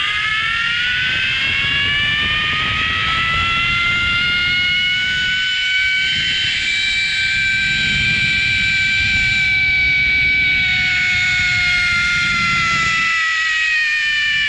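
Zip-line trolley pulleys running along the steel cable: a whine that rises in pitch as the rider picks up speed, holds, then falls as the ride slows near the end. Low wind rumble on the microphone underneath.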